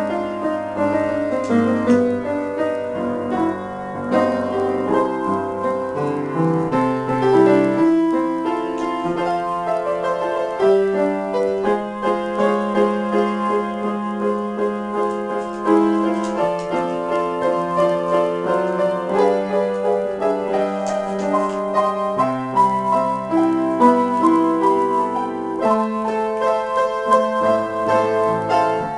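Solo piano improvisation: chords and melody played continuously over held bass notes.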